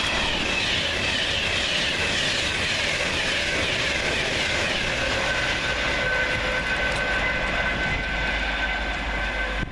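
Class 390 Pendolino electric train passing through at speed: a steady, loud rush of wheel-on-rail and air noise with some rail clatter. Thin steady whining tones come in about halfway, and the noise eases a little near the end.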